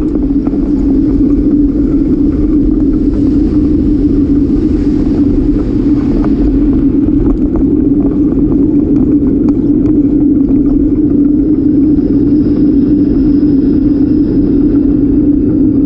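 Steady rumble of riding a bicycle on city pavement, picked up by a bike-mounted camera, with wind on the microphone and light rattles from bumps in the road.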